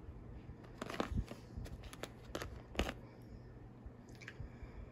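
A few sharp crackles and clicks, bunched about one to three seconds in, from a Kit Kat bar being handled and bitten during tasting.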